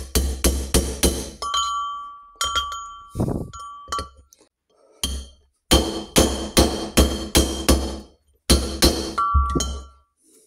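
Hammer tapping a new main-shaft ball bearing into a heated aluminium Norton Commando gearbox casing. Quick blows come in runs of three to seven, some leaving a short metallic ring. The bearing is a tight fit being driven home into its housing.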